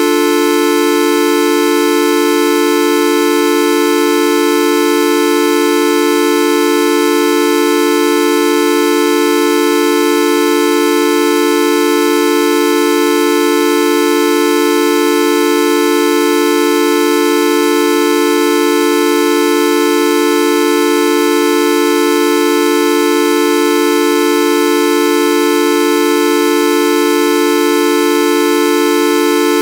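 A steady, horn-like synthetic tone with many overtones, held at one pitch and level without a break.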